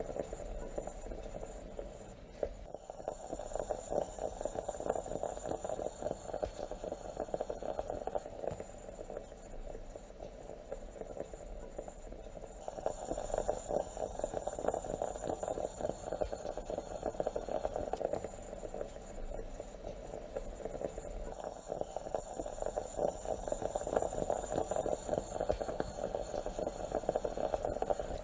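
Stovetop moka pot gurgling as the coffee comes up into the top chamber, a dense bubbling that swells and eases about every nine seconds.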